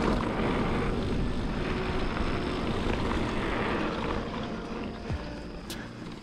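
Mountain bike rolling along a dirt singletrack, a steady rush of tyre noise and wind on the action-camera microphone that eases off a little in the last couple of seconds, with a sharp click near the end.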